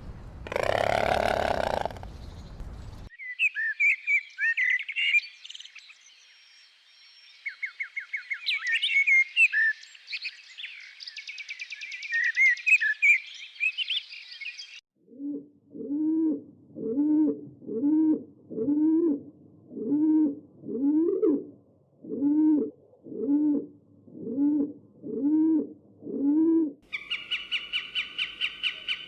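A run of animal calls: a loud call in the first few seconds, then high birdsong chirps and twitters, then about a dozen low, evenly spaced calls roughly one a second, ending with a short high buzzy rattle.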